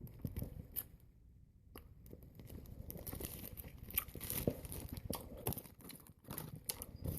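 Plastic snack wrapper being crinkled and torn open, faint scattered crackles and clicks, a short pause about a second in and then steadier rustling.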